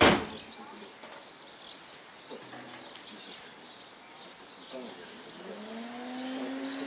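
Birds chirping outdoors, many short high calls, after a sharp click at the very start. From about five seconds in, a low hum rises in pitch and then holds steady.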